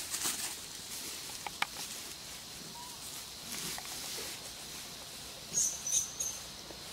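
Dry leaves rustling and crackling as infant macaques scamper and tussle on the leaf litter, with a few short ticks about a second and a half in. Two or three short, high squeaks come a little before the end and are the loudest sounds.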